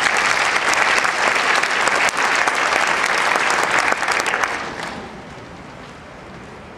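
Audience applauding, many hands clapping, dying away about four to five seconds in.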